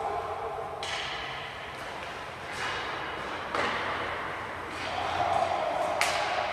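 Hockey skate blades scraping hard across rink ice in three sharp bursts, each trailing off in the arena's echo.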